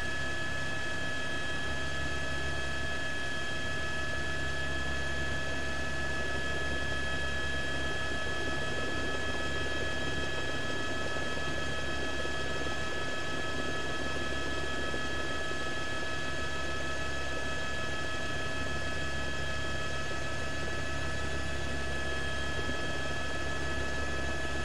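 Steady helicopter cabin noise: a constant low engine and rotor rumble with several steady whining tones over it, unchanged throughout.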